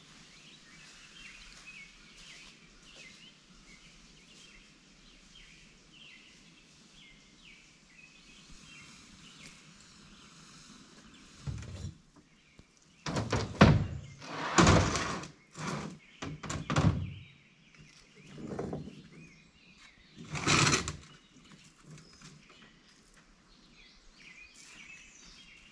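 Birds chirping faintly, then from about halfway a run of loud thuds and scrapes as boxes and gear are shifted around in the bed of a pickup truck, the loudest a little past the middle.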